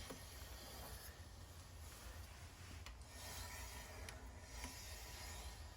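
Triumph Bonneville T100 front brake grinding: the pads rub and scrape on the disc as the front wheel turns, a faint scrape that swells and fades a few times. The owner suspects dirt packed into the long-uncleaned caliper.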